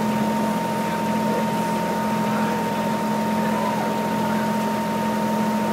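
A steady machine-like drone with a constant low hum and a thin steady tone above it, with faint voices now and then.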